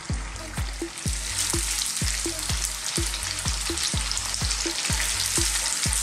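Cubes of firm tofu frying in hot sunflower oil in a small wok: a steady bubbling sizzle that grows louder about a second in. A regular low beat runs underneath.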